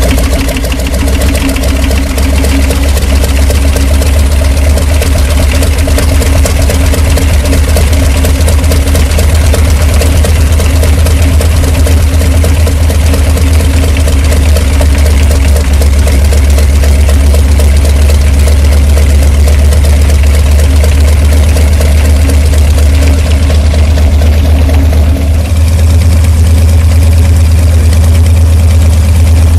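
An aerobatic monoplane's radial piston engine running steadily at idle just after starting, its propeller turning, with a strong low hum throughout.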